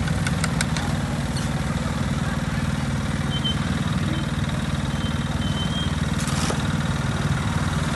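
A small engine idling steadily with a low, even hum, and a few sharp taps in the first second.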